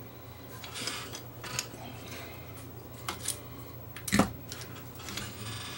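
Workbench handling noises: light clicks, taps and rubs of hands on a metal CD player chassis and tools, with one louder sharp clink about four seconds in as a soldering iron is picked up. A low steady hum runs underneath.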